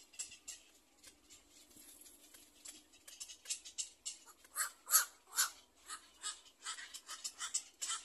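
Black-crowned night herons at the nest giving a rapid series of short, clicking calls. The calls start about three seconds in and are loudest around the middle.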